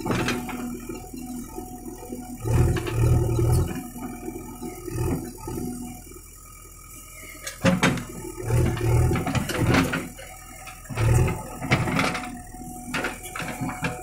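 JCB 3DX backhoe loader's diesel engine running and swelling in loudness several times as the backhoe arm digs under hydraulic load, with clanks and knocks from the bucket and linkage working the soil.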